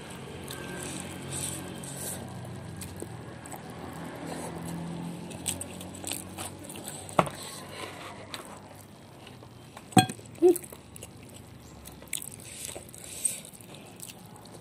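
A person eating by hand close to the microphone: chewing and mouth sounds with a few sharp clicks and crunches, the loudest about seven and ten seconds in. A low steady rumble in the background fades out about halfway.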